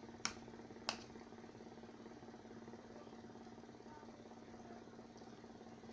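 Two sharp clinks about half a second apart near the start, from a spoon against a plate during a meal, over a steady low hum.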